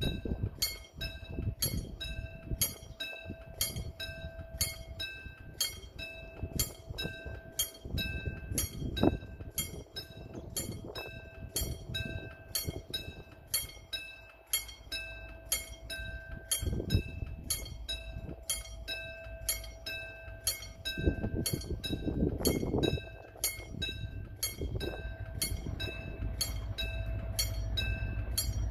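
Railway level-crossing warning bell ringing over and over, about two rings a second, over a steady tone. Toward the end the low rumble of an approaching diesel locomotive hauling a two-car Mugunghwa passenger train grows louder.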